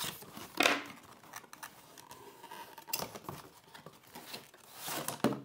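Cardboard headphone packaging being handled: the box scraping and rustling as it is slid open, in irregular bursts with a sharp scuff about half a second in.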